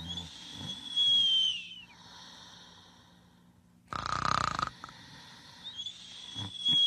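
A sleeping pet snoring. A long high whistling note slides down at its end, a harsh raspy breath comes a few seconds later, and the whistle returns near the end.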